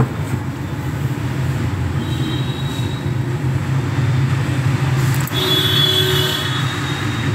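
Metal spatula scraping and stirring potato pieces around a metal kadai, giving short high-pitched squeals about two seconds in and again after five seconds, over a steady low hum.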